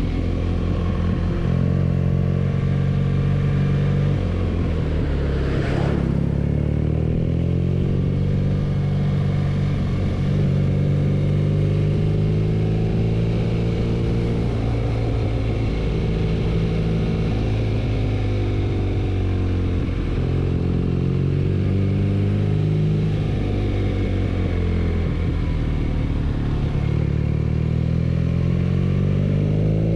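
BMW R nineT's 1170 cc air/oil-cooled boxer twin under way, its engine note rising and falling with the throttle and gear changes. There is a short sharp sound about six seconds in.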